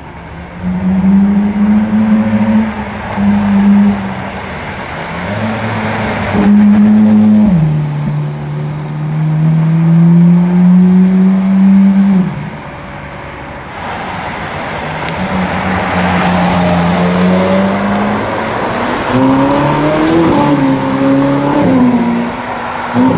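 Ferrari sports cars, among them 458 Italias with their 4.5-litre V8s, driving past one after another. Their engines hold steady, loud notes, and the pitch rises and falls in quick revs near the end as a car accelerates away.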